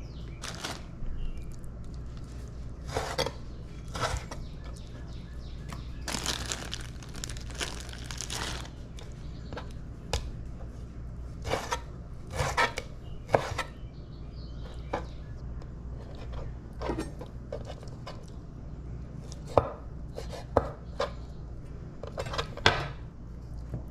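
Knife chopping raw catfish and bluegill fillets into pieces: irregular single strikes, with a quicker run of cutting strokes around six to eight seconds in.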